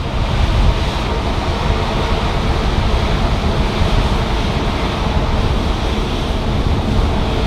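Jet airliner engines running at high power close by, a loud, steady rumbling roar that comes in suddenly at the start and holds level.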